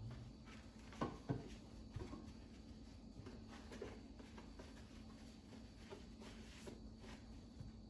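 Faint rubbing of a cloth over the plastic casing of a Nespresso Vertuo Plus coffee machine, with light handling knocks, the strongest two about a second in.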